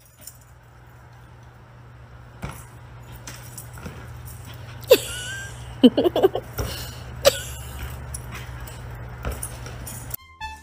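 A dog playing at a ball hung on a line: several sharp knocks, with a cluster of short vocal sounds about six seconds in, over a steady low hum.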